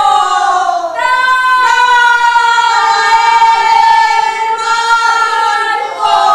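A group of voices shouting together in long, drawn-out, almost sung cries, several held notes in a row, the last ones falling in pitch as they end.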